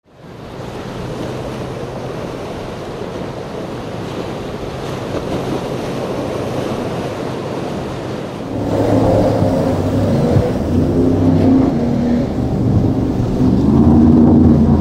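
Wind and surf noise for most of the first half. Then, about eight seconds in, a Cigarette 36 Gladiator speedboat's engines come in louder, their pitch rising and falling with the throttle as the boat runs through rough water.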